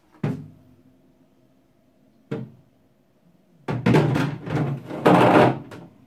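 White plastic freezer drawer handled and slid back into the bottom of an upright freezer: a knock about a quarter second in and another about two seconds in, then about two seconds of loud plastic scraping and knocking as the drawer is pushed into place.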